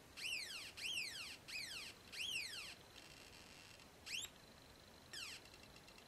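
Funway 1 two-transistor electronic siren kit sounding through its small loudspeaker. It gives a string of short whoops, each rising and then falling in pitch, about four in the first two and a half seconds, then a faint steady tone and two more whoops later. With a 10 microfarad capacitor in place of the 100 the sweep runs a lot quicker.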